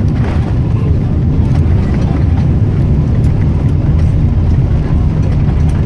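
Boeing 777-300ER cabin noise heard from a window seat in economy: a loud, steady low rumble of the jet in flight near the end of the trip.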